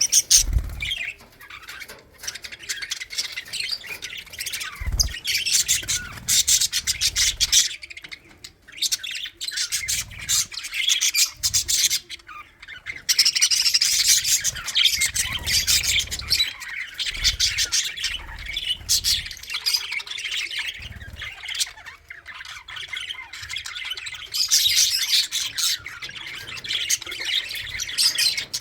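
A colony of budgerigars chirping and chattering together, a dense continuous warble of many birds with squawks, punctuated by occasional low thumps.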